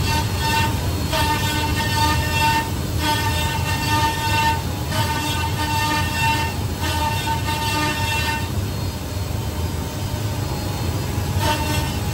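Woodmaster 8-axis, 32-tool multi-spindle CNC router machining wooden table and chair legs: a steady low machine hum under a high whine from the cutters. The whine comes in passes of about a second and a half with short breaks, drops out for about three seconds in the second half, and returns near the end.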